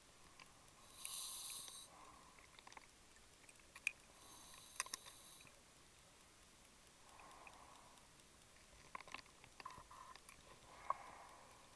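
Faint underwater sounds of a scuba diver's breathing gear at depth: two short hisses of gas a few seconds apart, with scattered clicks and soft gurgles of bubbles.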